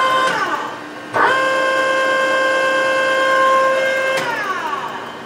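Okamoto surface grinder's wheelhead power up-and-down motor running with a steady whine. It stops and winds down in pitch just after the start, starts again abruptly about a second in, and stops and winds down again near the end.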